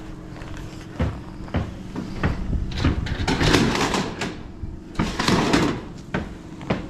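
A long metal standing-seam roof panel being handled and set down: a few sharp knocks, then two longer stretches of rattling, wobbling sheet metal as the panel flexes and scrapes.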